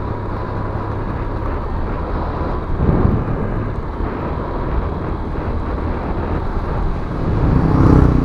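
Honda Click 125i scooter running on the road, its single-cylinder engine under a steady rush of wind and road noise on the microphone. The sound swells briefly about three seconds in and again near the end.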